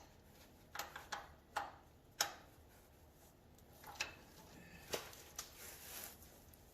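Irregular sharp clicks and knocks of an oil filter wrench being worked on an oil filter, about seven in all, the loudest a little after two seconds in.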